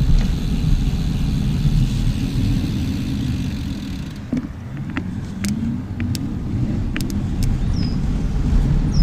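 Wind and road noise while riding a bicycle: a steady low rumble with scattered clicks and rattles. A high hiss drops away about four seconds in.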